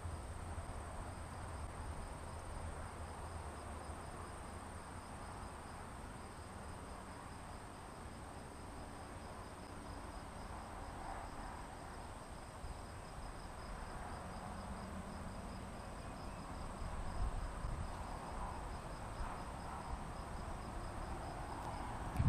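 Insects chirping steadily: a thin, high, unbroken trill with a fainter rapid pulsing chirp below it, over a faint low rumble.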